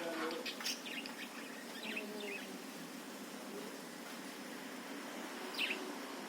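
Budgerigar chirping and warbling in short runs: a cluster of quick high chirps at the start, more around two seconds in, and a brief chirp near the end, over a steady low hum.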